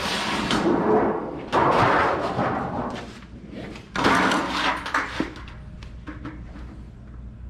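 Thin galvanized sheet steel being handled and worked: three loud, noisy stretches of about a second each, with scattered clicks and knocks between.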